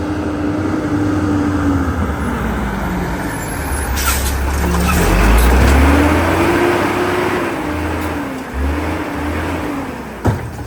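Autocar WX rapid-rail garbage truck driving hard under full throttle, its engine pitch climbing and dropping back twice over a heavy low rumble. A short sharp knock near the end.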